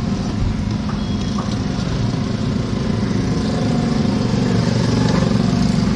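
Road traffic, with a motor vehicle engine running steadily and getting somewhat louder in the second half.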